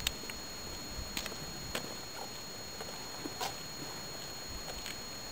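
Footsteps on a gravel-strewn road: short, irregular scuffs and crunches, a few of them louder, over a faint steady high-pitched whine.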